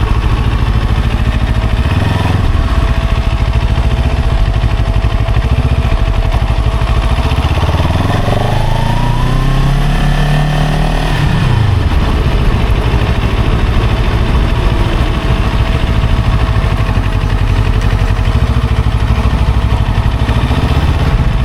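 Motorcycle engine running steadily at low revs, then rising in pitch as it accelerates about eight seconds in and falling back about three seconds later.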